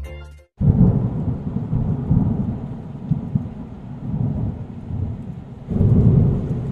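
Rolling thunder rumbling, part of a storm sound effect. It starts about half a second in and swells again near the end.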